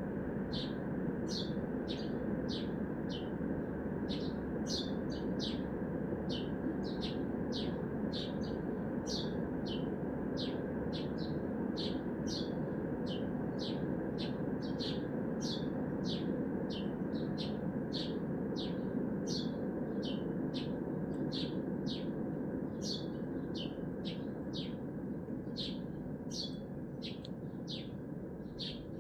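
A small bird calling insistently, one short high note that drops in pitch, repeated a little under twice a second, over a steady hum of city traffic.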